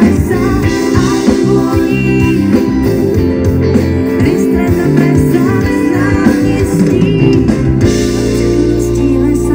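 Live band music: a woman singing over guitar and bass, loud and continuous.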